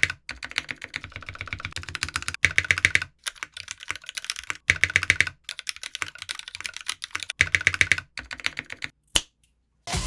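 Typing on an S+R Iron165 custom mechanical keyboard with lubed Vintage Black linear switches, a brass plate and GMK doubleshot ABS keycaps: fast runs of key clacks in bursts with short pauses between them. The typing stops a little after nine seconds, and music starts right at the end.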